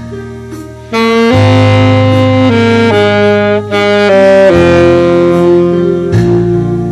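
Saxophone playing a slow melody of long held notes over a backing track with bass and chords; after a softer opening, the saxophone line swells in about a second in.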